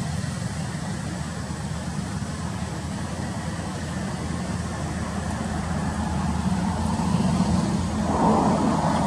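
Steady low rumble of a motor vehicle's engine, growing louder toward the end as it comes closer.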